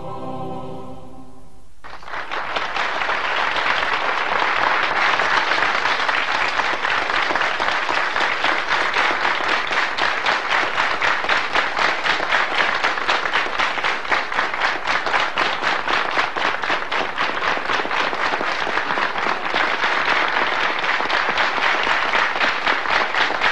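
A mixed choir's held final chord ends about two seconds in, and a concert-hall audience breaks into loud applause that settles into even, rhythmic clapping in unison.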